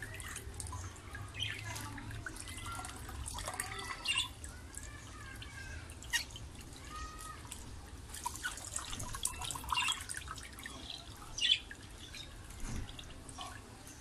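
Water splashing and dripping in a small bowl of shampoo water as a budgerigar is washed by hand, with a few short chirps from the bird.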